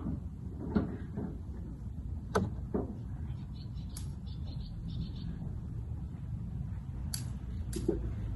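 Scattered light clicks and knocks from an oil filter being unscrewed by hand, a little at a time, over a low steady background.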